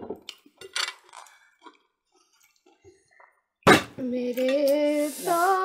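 A part-filled plastic bottle tossed in a bottle flip and knocking onto a table, with light clinks of plates and cutlery. About two-thirds of the way in comes a loud knock, then a voice holds one long drawn-out note.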